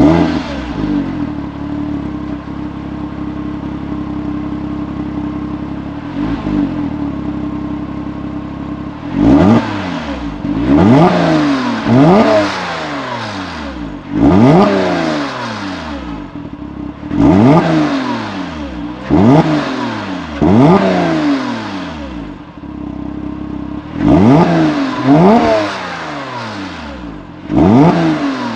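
Porsche Boxster RS60 Spyder's 3.4-litre flat-six through its Porsche Sport Exhaust, just started: it flares, settles into a steady idle, then from about nine seconds in is blipped about ten times, each rev rising sharply and falling back to idle.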